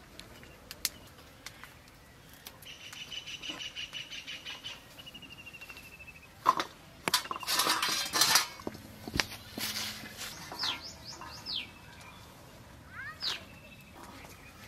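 Birds calling: a rapid pulsing call for a couple of seconds, then a short descending trill, and later a handful of quick downward whistles. Between them come crisp snaps and a loud spell of rustling and clatter as green drumstick pods are broken and gathered on a steel plate.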